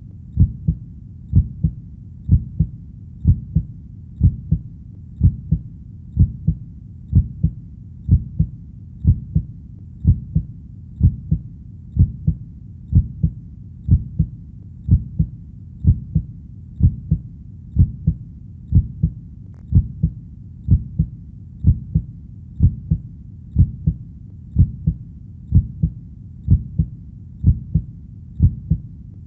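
Heartbeat sound: slow, steady lub-dub beats, about one a second. Each beat is a low double thump over a faint low hum between beats.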